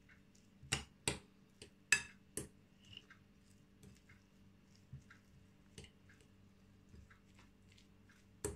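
A metal fork mashing cottage cheese and butter in a glass bowl, its tines clicking against the glass at irregular intervals: four sharper clinks in the first two and a half seconds, then lighter taps.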